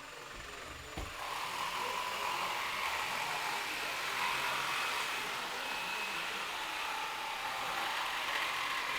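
Electric jigsaw starting up about a second in, after a knock, and then running steadily as it cuts through a board.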